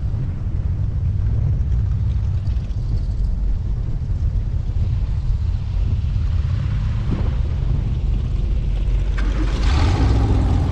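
Air-cooled VW flat-four engine of a dune buggy running steadily at low speed as the buggy crawls over beach sand, heard from on board as a deep rumble.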